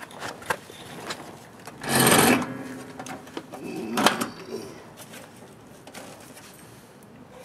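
Knocks, rattles and a scraping rustle as an Earthwise 24-volt cordless lawn mower is handled and tipped over onto its side. There is a loud scrape-like burst about two seconds in and a sharp knock about four seconds in.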